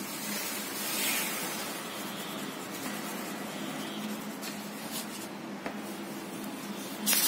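Oil pastel rubbed back and forth across drawing paper, a steady scratchy rubbing, with a brief louder scrape near the end.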